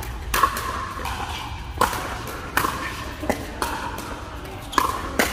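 Pickleball paddles striking a hard plastic ball during a rally: about seven sharp pocks at irregular intervals, each with a short ring echoing in a large indoor hall.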